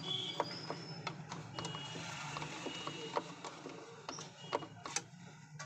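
Thin screwdriver backing out small screws from the plastic rear housing of an Orpat fan room heater: irregular small clicks and scrapes of metal on plastic.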